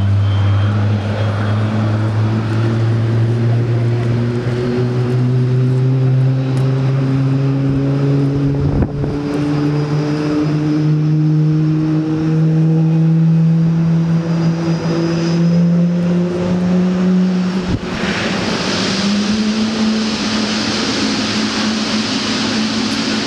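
GE90 turbofan of a Boeing 777 freighter spooling up during engine start: a steady hum that rises slowly in pitch for about eighteen seconds, then a louder rushing hiss comes in and the pitch steps up.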